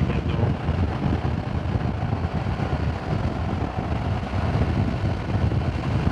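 BMW R1200GS motorcycle riding at road speed: steady wind buffeting on the microphone mixed with the flat-twin engine's running.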